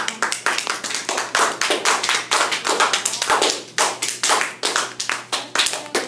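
A small group of people clapping, applause that starts suddenly and runs as a quick, uneven patter of separate claps.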